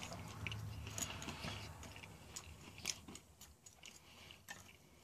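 Plastic spoon stirring and scraping a thick spaghetti-and-meat sauce mixed with crumbled crackers in a stainless steel tray, giving faint scattered clicks and scrapes.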